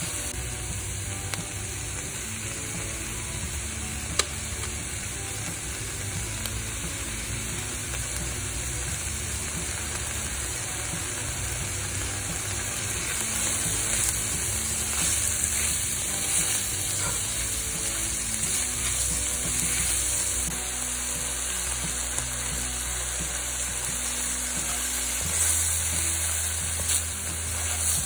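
Diced onion and sliced mushrooms sizzling steadily in a hot pan as they are stirred with a wooden spoon. Soft background music plays underneath.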